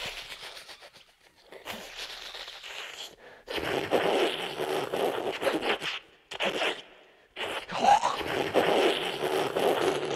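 A man's wet, fluttering slurp sucked through the teeth, the Hannibal Lecter imitation that follows the 'fava beans and a nice Chianti' line. It comes in about five rasping bursts, with short breaks at about one and a half, three, six and seven seconds in.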